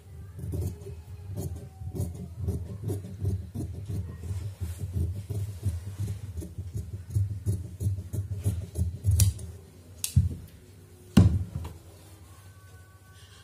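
Tailoring scissors cutting through net fabric in a long run of quick snips, followed near the end by two louder knocks.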